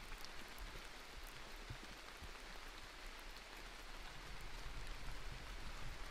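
Steady rain falling, heard as a hiss of many small drop ticks, over a steady low rumble.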